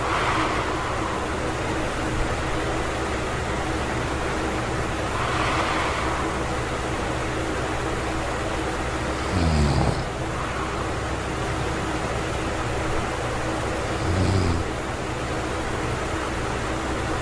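A sleeping man breathing with a Zquiet anti-snoring mouthpiece in, over a steady background hiss. Soft breaths come about every four to five seconds, and two of them, about nine and fourteen seconds in, are louder with a short low rumble in the throat.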